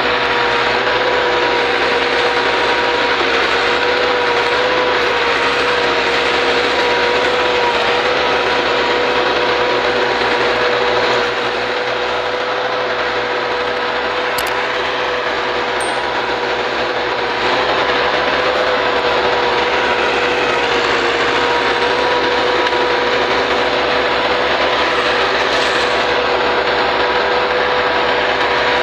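Massey Ferguson 260 tractor's diesel engine running steadily under load as it hauls a heavily loaded trailer, with a steady high whine over the engine noise. It goes a little quieter for a few seconds near the middle.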